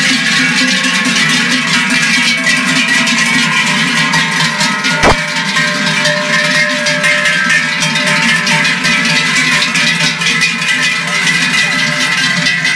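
Many large cowbells worn by a herd of cows, clanging together as the cows walk past. They make a dense, overlapping ringing in many pitches. There is one sharp knock about five seconds in.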